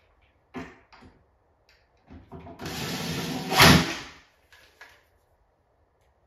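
Cordless drill/driver running for about two seconds as it drives a screw into the wall cabinet, at its loudest near the end of the run. A few light knocks of wood and hardware come before and after it.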